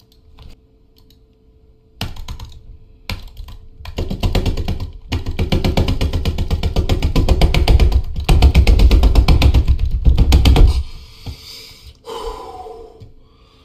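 Rapid, loud clatter of a computer keyboard being typed on hard, close to the microphone, in fast runs of clicks starting about two seconds in and stopping about eleven seconds in.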